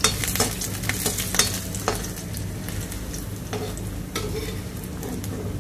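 Dried red chillies frying in a little sesame oil in a pan, sizzling as they are stirred. A spatula scrapes and clicks against the pan, most often in the first two seconds.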